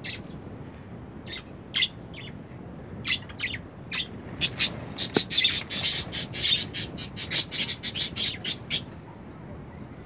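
Budgerigars chirping and squawking: scattered short high calls at first, then from about halfway a fast run of short harsh calls, about five a second, that stops near the end.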